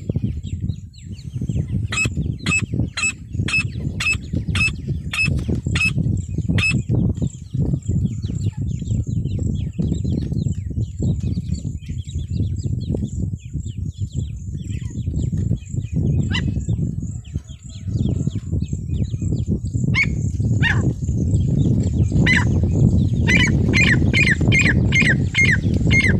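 Female francolin (teetar) calling: a run of about nine sharp, high calls at roughly two a second, a few single calls later, then another quick run of calls near the end. A loud, steady low rumble runs under the calls throughout.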